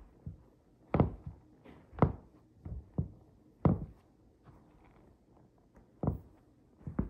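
Footsteps in chunky-soled sneakers on a rug: a series of dull thuds at irregular spacing. The loudest come about one, two and three and a half seconds in, then a pause, then two more near the end.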